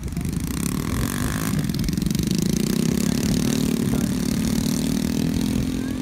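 Quad bike (ATV) engines running; the main engine's pitch rises about two seconds in, then holds steady.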